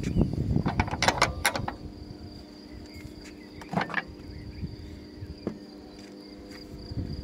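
Barrel-bolt latch of a pool ladder's locking mount being worked by hand: a quick run of sharp clicks and knocks about a second in, then single clicks near four and five and a half seconds.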